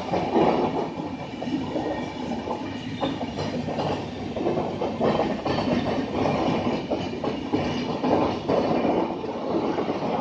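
Coaches of an express passenger train rolling through at speed, the wheels clattering in a steady run of knocks over the rail joints.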